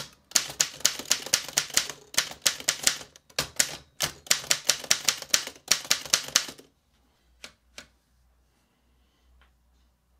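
Underwood Standard manual typewriter typing in quick runs of sharp keystrokes, several a second, with short pauses between runs. The typing stops about two-thirds of the way through, and two single clicks follow a second later.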